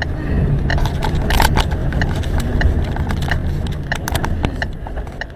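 Violent storm wind buffeting a car, a heavy low rumble with scattered sharp clicks and knocks of things striking it; it eases near the end.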